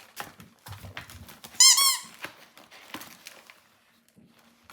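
A squeaky dog toy squeaked once, a quick high-pitched run of about four squeaks lasting under half a second about a second and a half in, amid rustling and crinkling of gift packaging.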